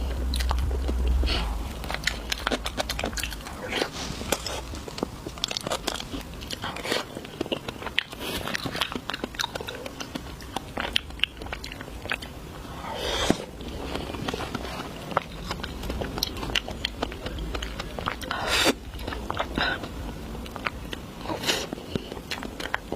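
Close-miked eating of desserts: many small wet clicks of biting and chewing, with a few louder crunchy bites in the second half.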